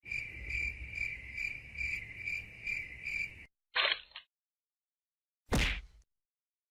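Crickets chirping in an even pulsing rhythm, a little over two pulses a second, for about three and a half seconds, then cut off abruptly. Two short, separate sounds follow, one about four seconds in and a louder one near the end.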